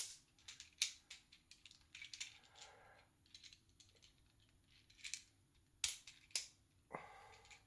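Plastic joints and parts of a Transformers Earthrise Fasttrack deluxe figure clicking and snapping as they are folded into vehicle mode: a handful of sharp clicks with softer rubbing of plastic between them.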